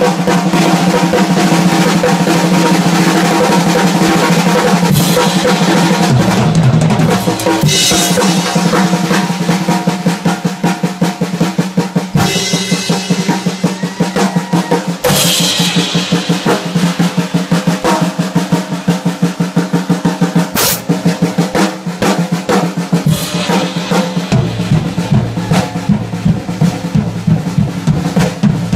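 Live drum solo on a full drum kit: fast rolls around the snare and toms over the bass drum, with cymbal crashes every few seconds.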